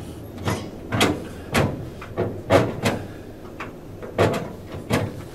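A car's hood latch and hood edge being worked by hand to pop the hood: a series of about seven sharp clunks and clicks, spaced irregularly.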